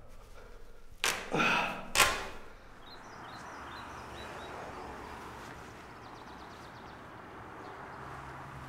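A sudden rushing whoosh about a second in, then a sharp hit at about two seconds, which is the loudest moment, followed by a steady low hiss.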